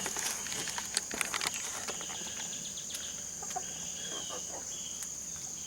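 Australorp chickens clucking softly now and then over a steady, high insect chirring.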